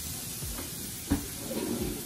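Shrimp sizzling in a cast-iron skillet, a steady hiss, with one sharp click about a second in.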